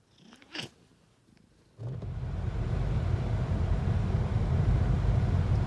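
Near quiet room tone with one brief faint sound, then suddenly the steady low rumble of a car driving, heard from inside the cabin.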